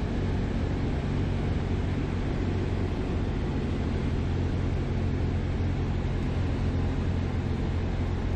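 Cessna 172M in flight: its four-cylinder Lycoming engine and propeller run steadily with a constant low drone, under a steady rush of airflow noise.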